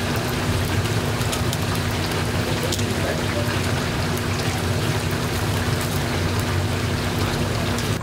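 Hot frying oil sizzling and crackling densely around whole chickens fresh out of the deep fryer, with a steady low hum underneath.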